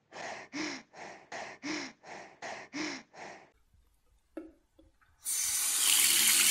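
A woman panting hard after a gasp, about nine quick breaths in three seconds. Then two small clicks as a basin tap is turned, and water starts running from it about five seconds in, steady to the end.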